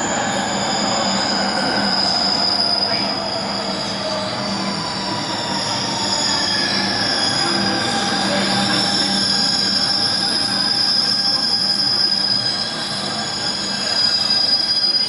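Shanghai Metro train running, with a steady high-pitched squeal of steel wheels on the rails over the running noise. Lower tones slowly slide down in pitch and later rise again.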